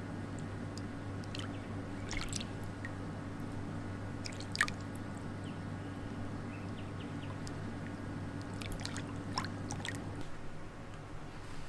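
A hand dipping and trailing in pool water, making small drips and light splashes, with one louder splash a little before halfway. Under it runs a steady low hum that stops near the end.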